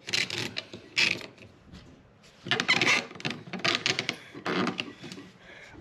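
Plastic jointed flex-mount arms being bent and handled, their segments clicking and rattling in several short bursts of clatter.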